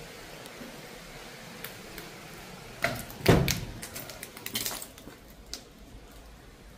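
A short run of knocks and clatter in a small room, with one heavy thud about three seconds in and a few lighter clicks after it, over a steady background hiss.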